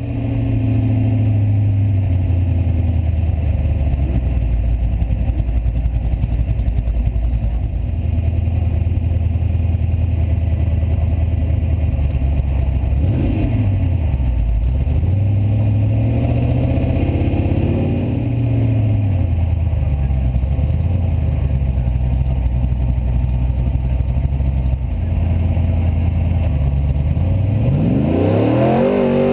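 Formula offroad car's engine heard from the cockpit, running at a steady fast idle with a few short blips in the middle, then revving hard near the end as the car sets off up a steep sand hill.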